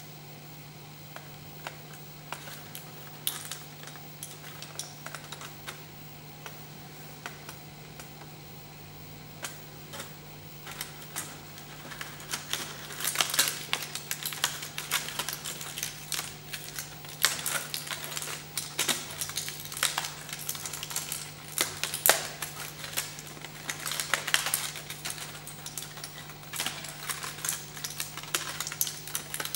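Crumpled aluminium foil crinkling and crackling as hands squeeze and shape it. The crackles are scattered at first and grow denser and louder about halfway through, over a steady low hum.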